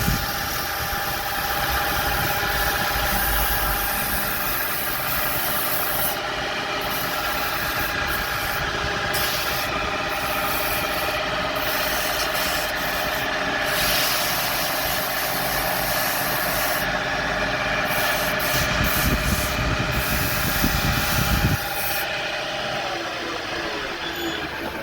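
Wood lathe running steadily, with a rubbing hiss from sanding the spinning wooden leg. Near the end the motor's whine falls in pitch as the lathe spins down.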